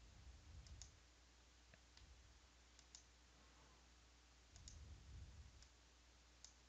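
Near silence, with faint computer mouse clicks, several in quick pairs, as wizard buttons and list items are clicked. Two soft low rumbles, about half a second in and again near five seconds.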